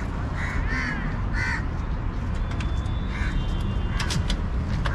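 Crows cawing several times over a steady low rumble, with a few sharp clicks near the end.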